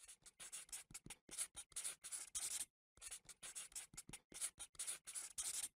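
Marker scratching out letters in quick short strokes, with a brief pause about halfway through before a second, similar run of strokes.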